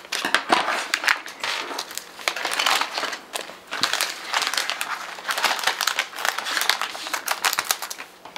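Plastic Lego minifigure blind bags crinkling as they are handled and snipped open with scissors, a dense run of crackles that eases off briefly about three and a half seconds in.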